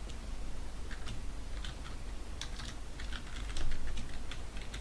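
Computer keyboard typing: a run of quick, irregular key clicks, starting about a second in.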